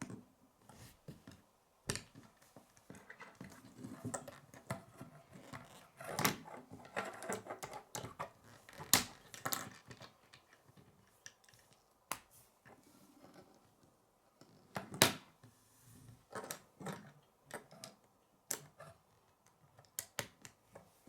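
Plastic K'nex pieces clicking and rattling as they are handled and snapped together: irregular sharp clicks, with the loudest snaps about 9 and 15 seconds in.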